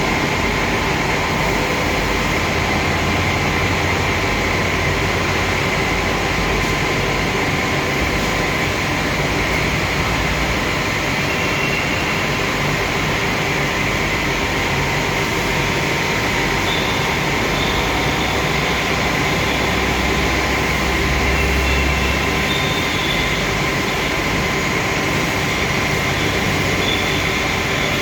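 Machinery running steadily: a loud, even rushing noise with a few constant whining tones in it and a low rumble that swells now and then.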